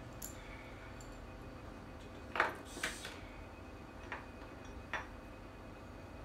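About five light, irregularly spaced clicks and clinks of small tools and parts being handled on a tabletop, the loudest about two and a half seconds in.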